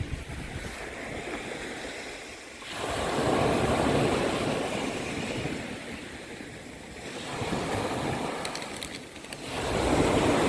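Small sea waves washing onto the shore, the rush of surf swelling about three seconds in and again near the end.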